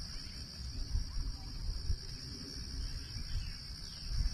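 Steady insect chorus, a continuous shrill trill, with an irregular low rumble beneath it.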